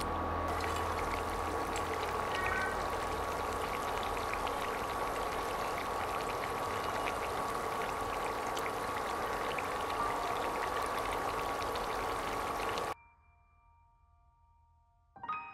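Potato fries deep-frying in hot oil in a pan: a steady sizzle with small crackles and a thin steady tone underneath. The sizzle cuts off abruptly about thirteen seconds in, and a bell-like chime rings near the end.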